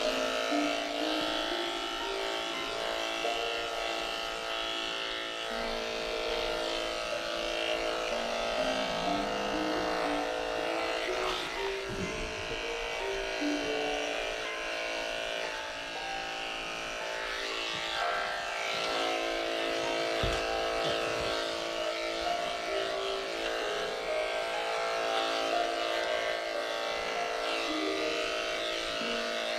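Corded electric dog grooming clippers running with a steady buzz as they shave a dog's coat, under background music.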